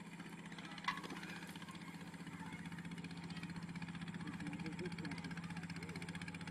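A small engine running steadily with a low, evenly pulsing hum, under faint voices; a short click about a second in.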